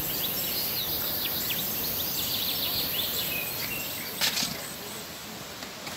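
Steady rushing outdoor background, typical of a river at a riverbank campsite, with many short, high bird chirps over the first few seconds. A single sharp click or knock comes about four seconds in.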